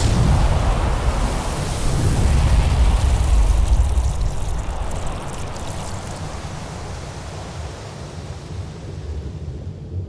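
Water pouring and rushing into a glass jar, starting suddenly and loud with a deep rumble under it, then easing to a steadier churning wash after about five seconds.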